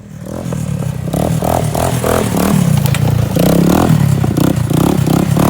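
Off-road motorbike or quad engine revving hard close by, its pitch surging up and down over and over. It is loud, building up over about the first second.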